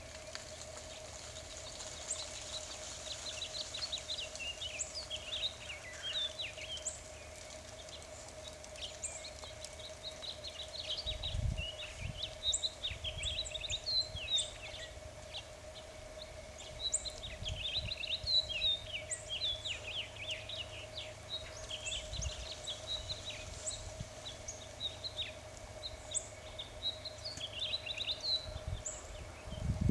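Several small birds chirping and twittering with quick, high calls, over a faint steady hum.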